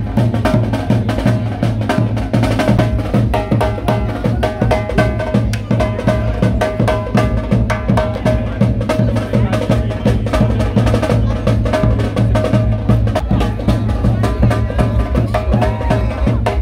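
Street drumming from a Kittitian big-drum band: a kettle (snare) drum played in fast, dense strokes and rolls over the beat of a big bass drum.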